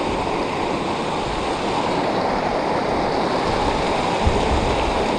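Small mountain stream rushing over boulders in white-water cascades: a steady, even rush of falling water.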